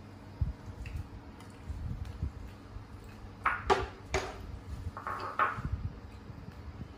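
Handling noises from food being worked by hand over a plastic basket: a few short crackles and rustles in the middle of the stretch, with several soft low thumps.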